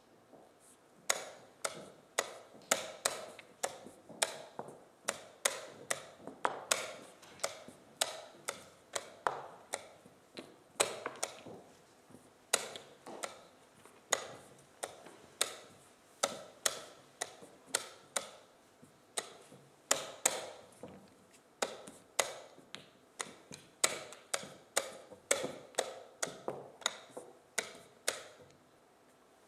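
Wooden chess pieces set down hard on a wooden board and chess clock buttons slapped, in fast alternation during blitz play: a rapid, irregular run of sharp clicks, roughly two a second.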